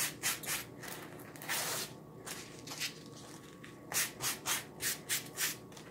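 Hands rubbing the sticky back of a silk-screen mesh stencil transfer against a terry fuzzing cloth, which takes some of the tack off. Short brushing strokes come in quick runs, with a quieter lull in the middle.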